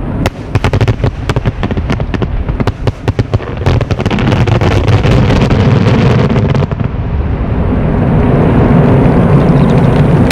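Fireworks display: a rapid run of sharp bangs and crackles, then from about four seconds in a dense, continuous rumble of many shells bursting together.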